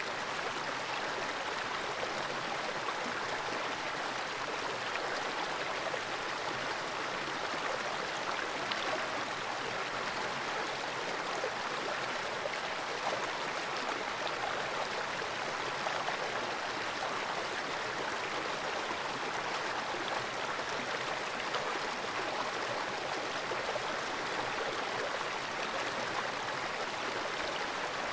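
Fast-flowing creek water rushing steadily, heard through a camera submerged in the pool.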